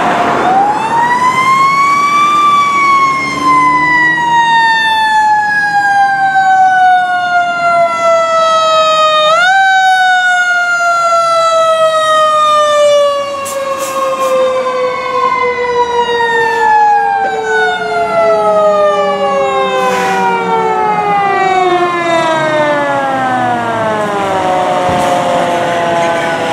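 Fire apparatus mechanical siren winding up, then coasting slowly down in pitch, wound up again briefly about nine seconds in and left to wind down once more. A second siren's falling tone overlaps it in the second half as the engine and the ladder truck pass.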